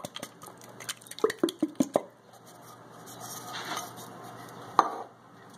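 A tin can of condensed cream of mushroom soup being emptied into a cast iron Dutch oven. A quick run of clicks and knocks of the can against the pot comes over the first two seconds as it is tipped and shaken out, then a single knock near the end.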